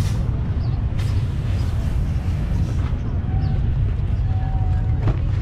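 Steady low rumble of SUV engines idling, with a sharp click about a second in and another near the end.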